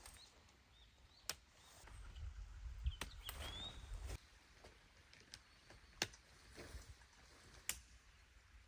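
Faint outdoor ambience: four sharp, isolated clicks a second or two apart, a low rumble between about two and four seconds in, and a brief bird chirp about three seconds in.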